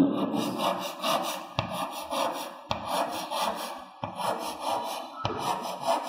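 Chalk scraping on a chalkboard in quick repeated strokes as a drawing is shaded in, with several sharp taps of the chalk against the board.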